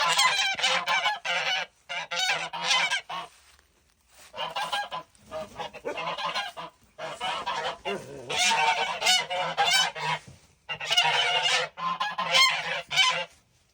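Several geese honking together in overlapping runs of calls, with two short lulls.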